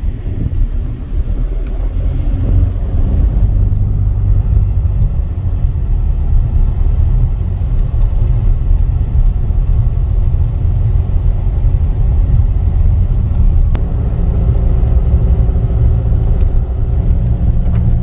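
Car engine and tyre noise heard from inside the cabin while driving, a steady low rumble.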